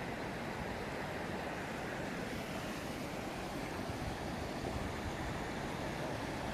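Steady rushing of flowing water, an even noise with no rhythm or breaks.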